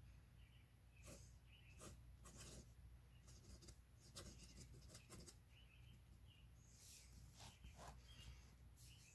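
Faint scratching of a fountain pen's steel nib on paper in short, separate strokes as a word is written in cursive, over a steady low hum.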